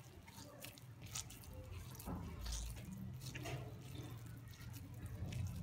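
Water dripping and splashing softly as a slice of bread, soaked in a bowl of water, is squeezed and shaped by hand, over a low steady hum.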